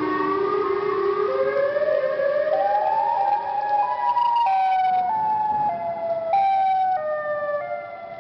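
Siren-style emergency alarm tone, several tones together, gliding slowly upward for about four seconds and then dropping in a series of steps.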